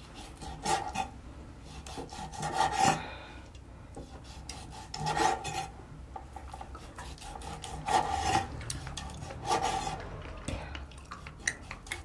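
Kitchen knife sawing through boiled octopus tentacle on a wooden cutting board, cutting thin slices: a series of rasping strokes, about five louder ones spread out, with smaller ones near the end.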